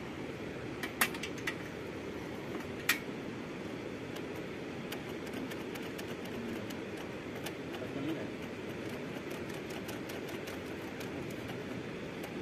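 Spanner and metal hand tools clinking against the bolts of a Hero motorcycle during roadside repair, with two sharper clinks about one and three seconds in and light scattered ticks after that, over steady background noise.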